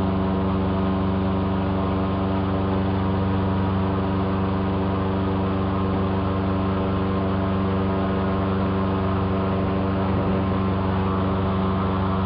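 Airboat engine and propeller running at a steady speed under way. It makes a constant drone whose pitch and loudness do not change.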